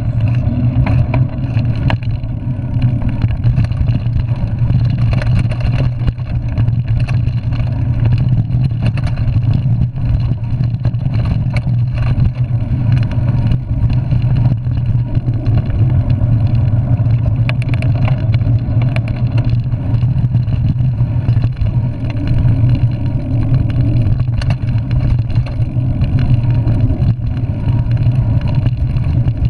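Steady loud low rumble of a mountain bike ridden over a dirt singletrack, picked up by a handlebar-mounted camera as wind and trail vibration, with frequent small rattles and knocks from bumps.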